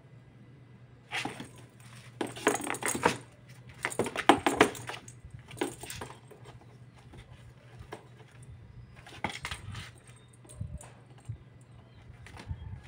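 A kitten batting and grabbing a perforated plastic jingle-bell cat ball around a cardboard box: irregular bursts of jingling and rattling with scuffs on the cardboard. The busiest stretch is from about two to five seconds in, with shorter bursts later.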